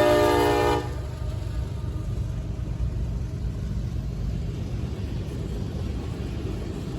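Diesel locomotive horn chord cutting off under a second in, followed by the steady low rumble of the passing freight train.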